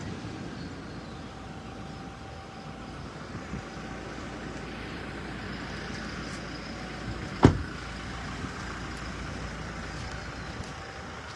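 Steady background hum with one loud, sharp thump a little past halfway through: a pickup truck's door being shut.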